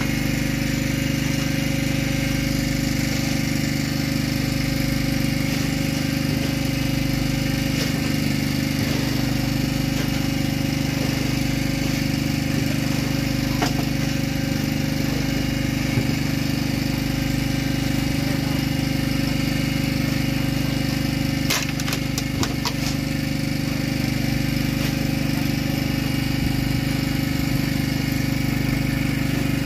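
An engine aboard a fishing boat running steadily, a constant low drone with no change in speed. A few sharp knocks come a little past two-thirds of the way through.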